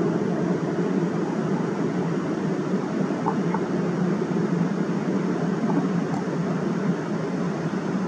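Rushing water of a river rapid pouring over a low weir step: a steady, low rush of white water.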